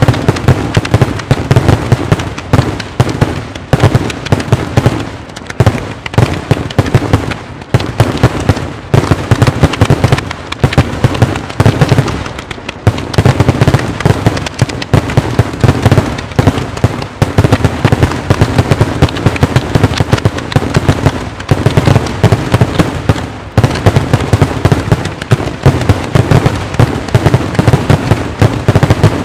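Maltese daytime fireworks battery: aerial salute shells bursting overhead in a dense, unbroken barrage of loud, sharp bangs, many a second.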